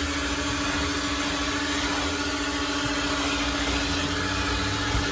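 Coin-operated car wash vacuum running steadily: a constant suction hiss with a steady hum as its hose nozzle works over the car's floor carpet.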